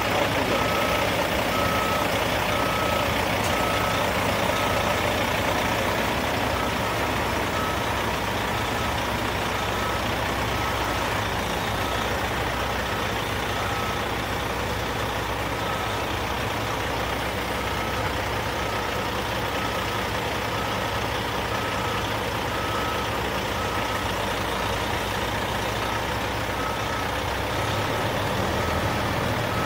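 Dump truck's diesel engine running steadily while its backup alarm beeps at a regular pace, the warning that the truck is reversing.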